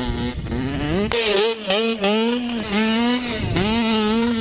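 Dirt bike engine revving hard under load, its pitch climbing and dipping several times as the throttle opens and closes.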